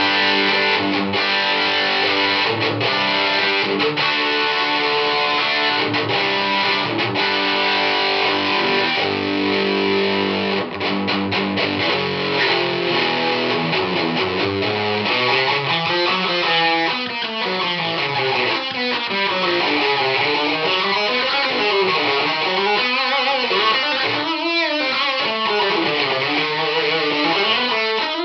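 Electric guitar chords played through an EVH 5150 III 50-watt tube amp on its blue channel, with gain about three-quarters up. The low notes sound flubby, and new Sovtek 6L6 power tubes have not cured it. From about halfway through, the tone sweeps up and down.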